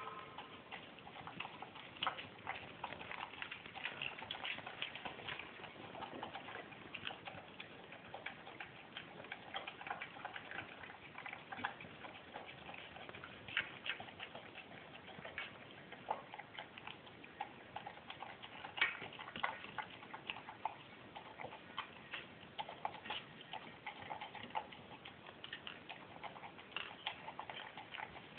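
Dog eating wet, watered-down food from a stainless steel bowl: faint, irregular clicks and smacks of its mouth, tongue and teeth against the food and the metal bowl, with a few louder clicks scattered through.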